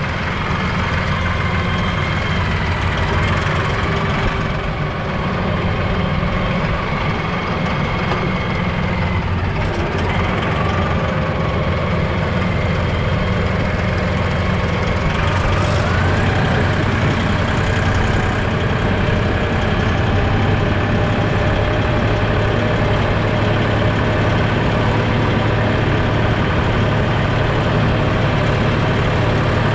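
A vehicle's engine running steadily at low revs.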